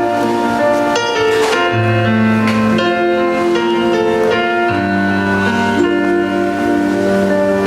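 A live pop band playing an instrumental passage: held chords over a bass line that changes note every second or so, with a keyboard sound prominent.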